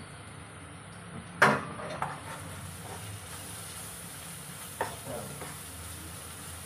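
A spatula stirring and scraping chopped onions frying in a nonstick wok, over a faint steady sizzle. The spatula knocks sharply against the pan about a second and a half in, the loudest sound, and lightly a few more times later.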